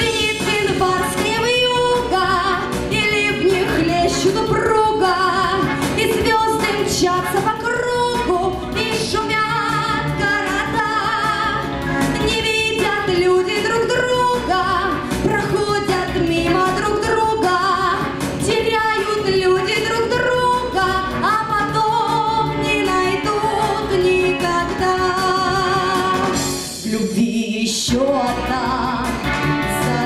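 A woman singing a pop song with vibrato over instrumental accompaniment, with a short dip near the end.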